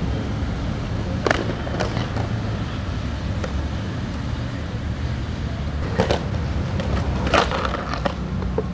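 Skateboard wheels rolling on concrete with a steady low rumble, broken by several sharp clacks of the board striking the ground and a curb. The loudest clacks come about six and seven and a half seconds in.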